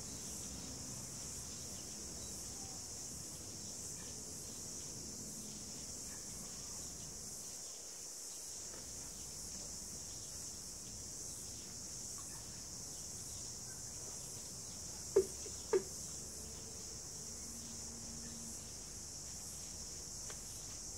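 Steady, high-pitched insect chorus droning without a break. About two-thirds of the way through, two short sharp taps come about half a second apart.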